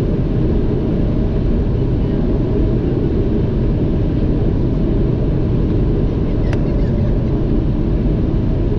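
Steady low rumble of airflow and engine noise inside the cockpit of a Gulfstream business jet on final approach, with a faint steady tone and a brief click about six and a half seconds in.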